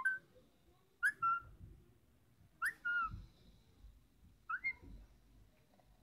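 Parakeet imitating phone notification sounds: four short whistled calls about a second or two apart, each a quick upward sweep into a brief held note.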